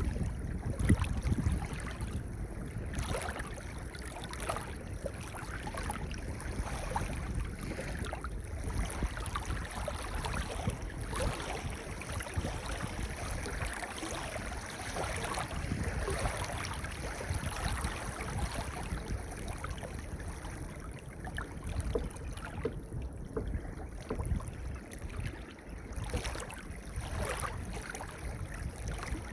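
Gentle waves washing over a pebble beach, the water rising and drawing back every few seconds with a fine crackle of stones rattling in the backwash.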